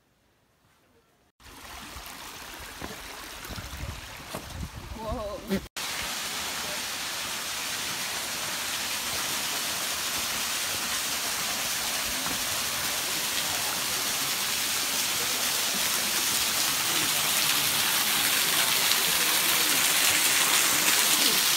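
Small waterfall pouring down onto rock: a steady rush of falling water that grows gradually louder as it comes nearer. It comes in sharply after about a second and a half of near silence.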